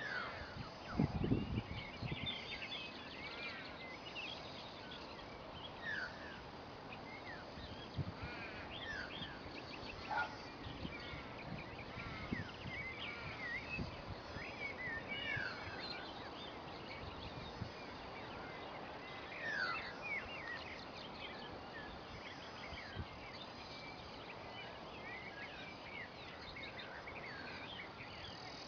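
Birds calling over a steady wetland background, many short chirps scattered throughout. A few low thumps come about a second in.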